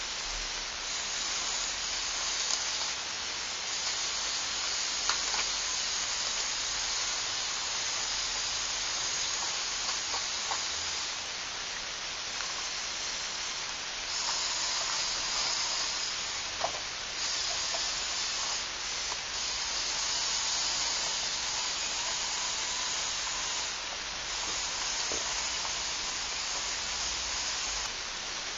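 Steady hiss with a few faint clicks and ticks scattered through it.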